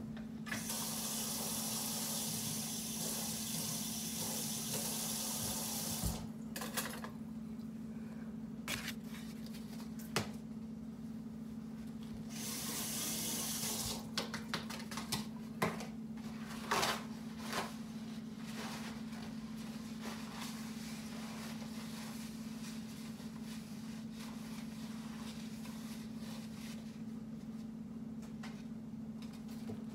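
Kitchen sink tap running into the sink twice, for about six seconds and then again for a second or two, followed by scattered clinks and knocks of things being handled at the sink. A steady low hum runs underneath.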